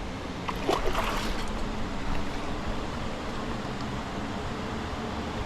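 Steady rush of flowing creek water, with a few short splashes about a second in.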